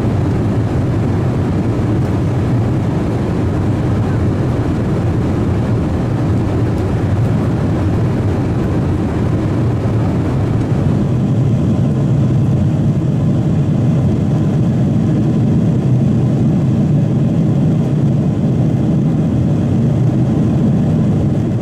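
Steady cabin noise of a Boeing 777-300 in flight, heard from a window seat: engine and airflow noise with a deep hum. About halfway through, the higher hiss drops away and the sound turns lower.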